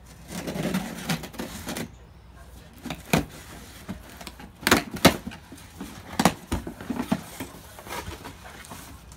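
Cardboard shipping box being opened by hand: packing tape slit with a cutter, cardboard rustling and scraping, and several sharp knocks as the flaps are pulled open and handled.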